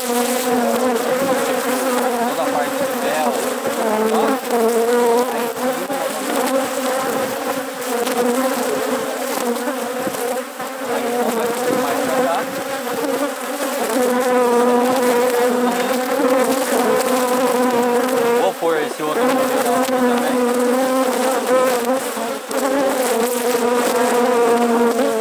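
Many honey bees buzzing in a loud, steady drone while a hive is being worked, the hum wavering slightly in pitch.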